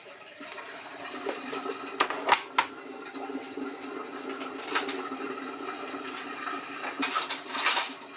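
A steady rushing sound like running water, with several sharp knocks and clatters of kitchenware, one of them as a plastic tub is set down on the worktop.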